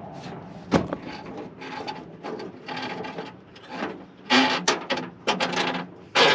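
Choke cable being pushed by hand through a hole in a half-track's dashboard, with a run of short rubbing and scraping noises and a sharp click about a second in. The rubbing comes faster and louder in the last two seconds.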